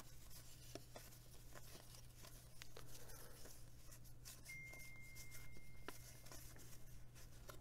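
Faint light ticks and rustles of cardboard baseball cards being thumbed through and slid past one another by hand, over a low steady hum. A thin high steady tone sounds for about two seconds midway.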